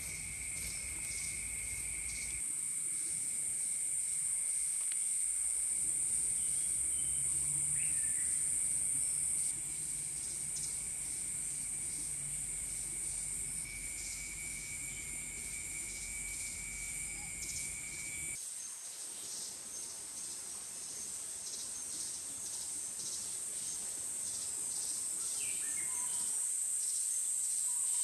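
Steady chorus of insects trilling in the forest, a high unbroken drone with a faint rapid pulsing under it. A lower steady tone joins it for a few seconds at a time, and the background shifts abruptly a few times.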